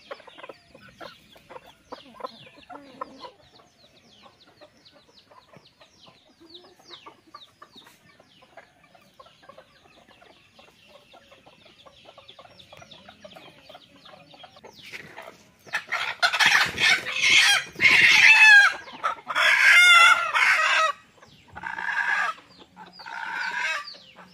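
Free-range country chickens clucking quietly, then, about two-thirds of the way in, loud repeated squawking and cackling that carries on to the end.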